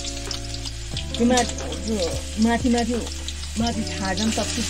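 Hot oil sizzling and crackling in a black iron kadai as food is tipped in from a bowl. A person's voice sounds over it three times.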